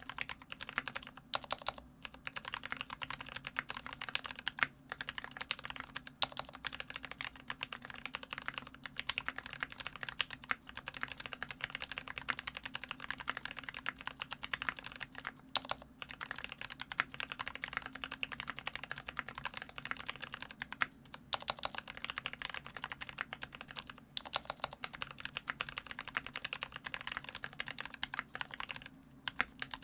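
Continuous fast typing on a LifeZone IRON Antique custom mechanical keyboard with lubed Gateron Ink Black linear switches, a brass plate and GMK keycaps: a dense stream of keystrokes broken by a few short pauses.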